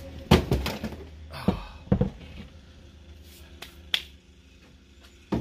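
Handling noise of a heavy Husqvarna 2100 chainsaw being carried and set down on a workbench: a scattered series of sharp knocks and clicks, the loudest about a third of a second in and again about two seconds in.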